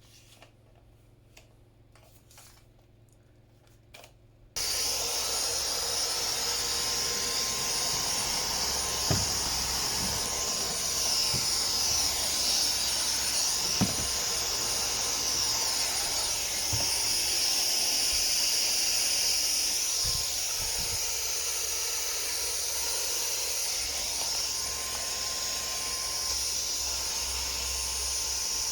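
A few faint clicks, then about four and a half seconds in a Dyson Micro 1.5kg cordless stick vacuum switches on and runs steadily with a high, airy whine, with a few light knocks while it runs.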